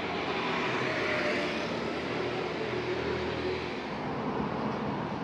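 City street traffic noise: a steady hum of vehicle engines and tyres, a little louder about a second in.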